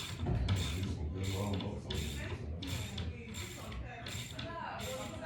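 Ratchet wrench clicking in a steady series of strokes, about one every two-thirds of a second, as it turns a TV wall-mount bolt.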